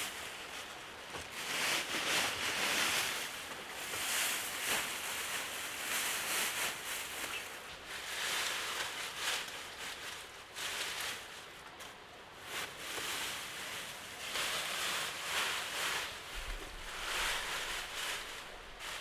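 Rain falling in the forest, a steady hiss that swells and eases every second or two, with scattered small ticks.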